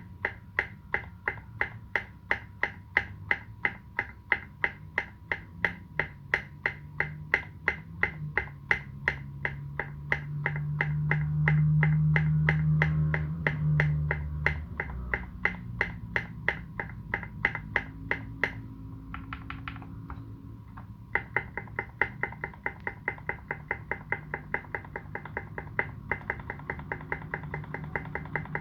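Space65 custom mechanical keyboard being typed on: modded Turquoise Tealios linear switches under SA keycaps, in quick, evenly spaced keystrokes. The typing pauses for about two seconds roughly two-thirds of the way through, then resumes. A low rumble swells and fades in the middle.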